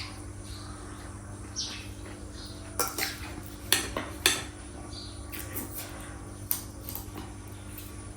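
A few sharp clinks and knocks of hard objects being handled, most of them in the middle of the stretch, over a steady low electrical hum.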